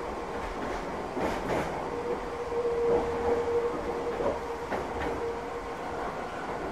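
Electric commuter train running, heard from inside the passenger car: steady rumble of wheels on the track with a few sharp clicks over rail joints, and a steady mid-pitched tone in the middle.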